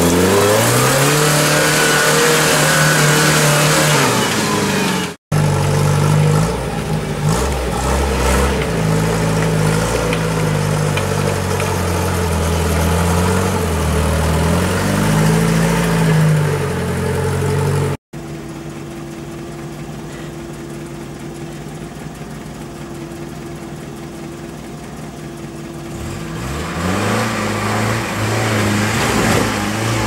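UAZ-469 off-road vehicle engines revving and working under load on steep slopes, the pitch rising and falling with the throttle. There are two brief breaks, a quieter stretch after the second one, and the revs climb again near the end.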